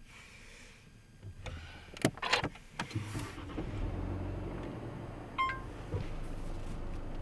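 A car with push-button ignition starting up: a few sharp clicks, then the engine catches about three seconds in and settles into a low, steady idle. A short electronic beep sounds about five and a half seconds in, followed by a click.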